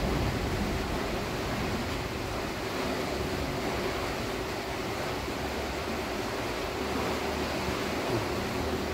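Steady rushing background noise with a faint low hum underneath; no distinct events.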